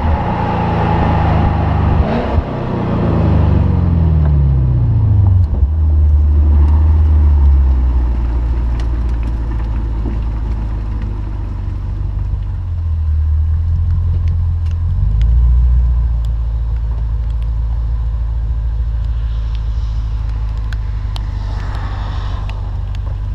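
2016 Lexus RC F's 5.0-litre V8 exhaust while driving: the note falls in pitch as the revs drop over the first few seconds, then settles into a low, steady drone at light cruising revs, with a short rise in revs about fifteen seconds in.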